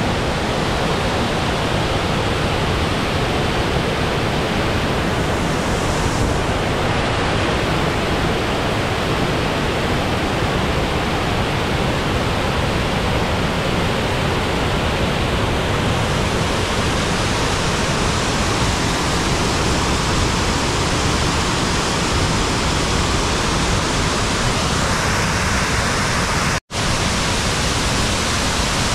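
Waterfall pouring: a steady, loud rush of falling water that cuts out for an instant near the end.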